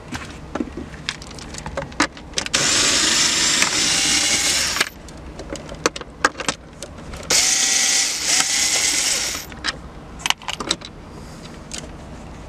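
Cordless drill/driver with a socket on an extension running in two bursts of about two seconds each, backing out two 7 mm dashboard screws. Small clicks of parts being handled come between and around the bursts.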